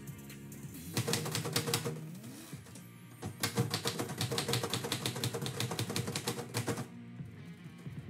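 Typewriter keys striking the paper in two quick runs of keystrokes, a short one about a second in and a longer one from about three and a half seconds to nearly seven seconds, over background music.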